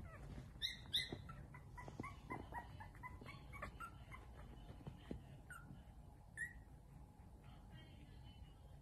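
Young Yorkshire terrier puppies whimpering in a string of short, high-pitched squeaks. The loudest come about a second in, with a run of smaller falling squeaks after and a few more near the middle.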